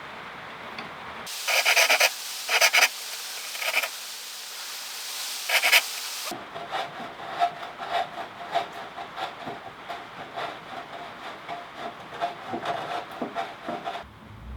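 Hand tools working wood. First come four loud strokes, then a longer run of quicker, softer rubbing strokes.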